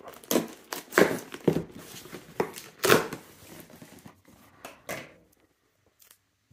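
Packing tape and cardboard flaps of a shipping box being slit open with a folding knife and pulled apart. There are a series of short tearing and scraping rips, the loudest about one and three seconds in, and the sounds stop about five seconds in.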